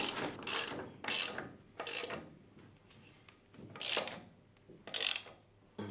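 Hand ratchet wrench clicking in about six short spells as the wheel nuts are run on and tightened on a car wheel.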